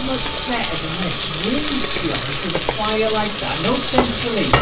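Steaks sizzling steadily in a frying pan as a plate of mushrooms is tipped in, with a few sharp clicks near the end as tongs knock against the pan.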